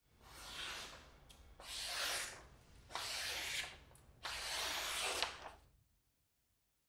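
A sharp knife blade slicing through a sheet of paper in four strokes, the last one longer, a test of the edge's sharpness.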